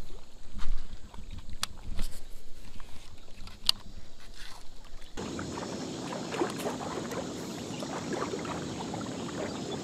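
Scattered knocks and crunches from steps on a stony riverbank, with low wind rumble on the microphone. About five seconds in, this gives way to a steady wash of river water moving along the rocky shore.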